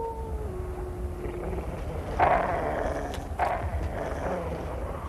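A wolf's howl trailing off, its pitch sliding down and ending about a second and a half in. Then two short rough sounds about a second apart.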